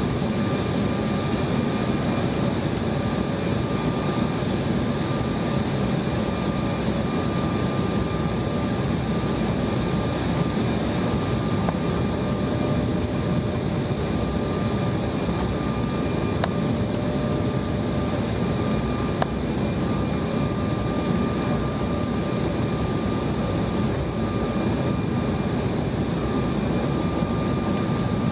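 Jet airliner running steadily: an even rushing drone with a few steady high whine tones that neither rise nor fall.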